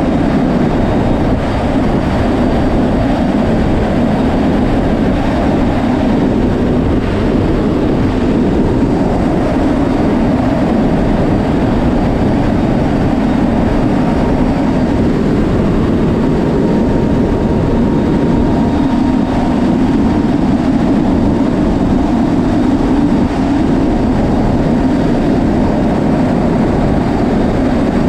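Loud, steady noise of a C-130J Super Hercules in flight: its four turboprop engines running and air rushing past the open rear cargo ramp.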